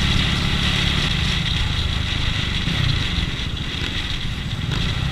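Wind rushing over a helmet-mounted camera while a KTM Duke 690's single-cylinder engine runs steadily underneath at street riding speed.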